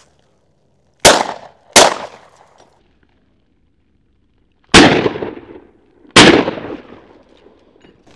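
Four shotgun shots at doves, in two pairs: two quick shots about a second in, then two more a little over a second apart near the middle and later part. Each shot rings off briefly.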